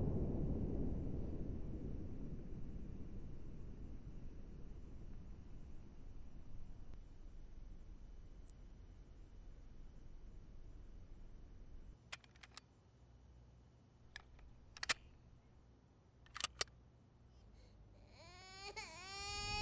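A steady high-pitched ringing tone, the ear-ringing effect a war film uses after a shell blast, over the low rumble of the blast fading away. A few faint clicks come in the second half, and music starts to rise near the end.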